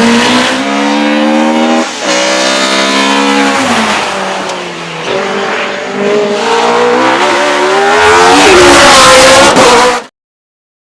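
Porsche 911 Carrera RSR's flat-six racing engine revving hard under acceleration, with a gear change about two seconds in. It eases off around four to five seconds in, then pulls hard again to its loudest before cutting off suddenly.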